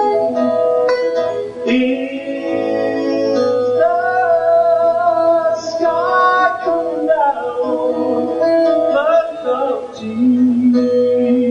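Live band music: a passage of the song with no sung words, guitar accompaniment under a held lead melody that bends and glides in pitch.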